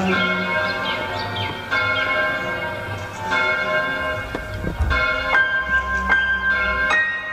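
A large church-type bell tolling slowly, a new stroke about every one and a half to two seconds, each ringing on into the next. A low rumble comes in underneath about two-thirds of the way through.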